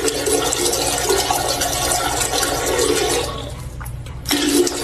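Water rushing for about three seconds, then dying down, with a short loud burst of the same sound near the end.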